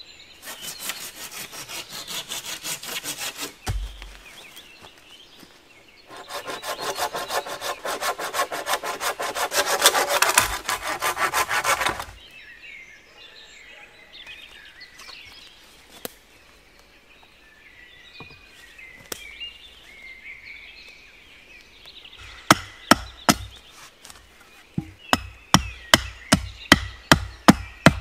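A curved pruning saw cutting through a wooden pole in two long runs of quick strokes, with a thud just after the first. After a quieter spell with faint bird calls, a small axe strikes a wooden stake in a fast run of sharp chops near the end.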